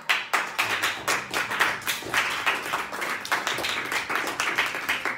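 A small group applauding, many hands clapping at once with single sharp claps standing out.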